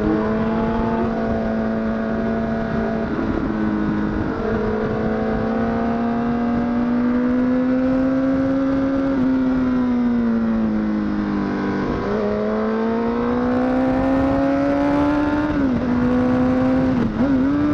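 Honda CBR1000RR SC57's inline-four engine running at high revs under way. Its pitch climbs slowly and drops sharply a few seconds in, near the middle and twice near the end, as gears change or the throttle closes, over a steady rush of wind.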